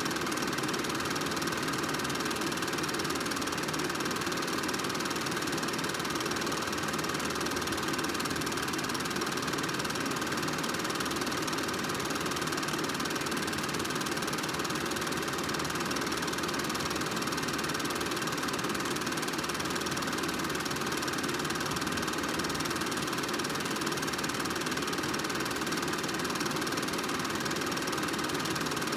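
Home-movie film projector running steadily, an even mechanical whir with a few steady tones in it.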